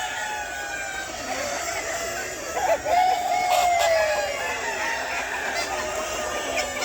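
A flock of chickens clucking and calling over one another, with a rooster crowing one long call about three seconds in.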